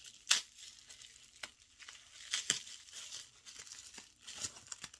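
Packaging being unwrapped by hand: wrapping crinkling and tearing, with a few sharp crackles, the loudest about a third of a second in.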